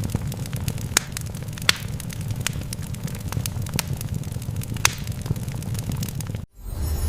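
Fire crackling: a steady low rumble with many sharp, irregular pops and crackles. It cuts off suddenly near the end.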